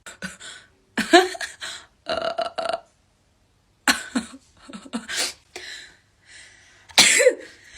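A person makes a string of short, involuntary throat and nose noises while having a nasal swab taken for a Covid-19 test, the loudest burst near the end.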